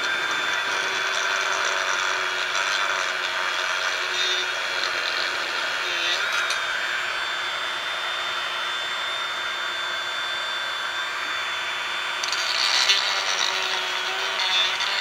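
Dremel rotary tool running at a steady high whine while it grinds out the grooves inside an AR-15 handguard so a rail keeper will fit. The grinding grows briefly louder near the end.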